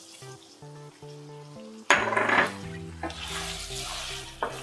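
Wooden spatula stirring chicken pieces in a nonstick kadai, clattering and scraping against the pan: a sudden loud clatter about two seconds in, then steadier scraping with a sharp knock near the end.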